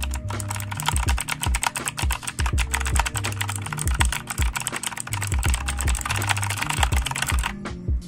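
Fast, continuous typing on an onn gaming mechanical keyboard with clicky blue switches: a dense clatter of key clicks that stops shortly before the end. Background music with a steady bass line plays underneath.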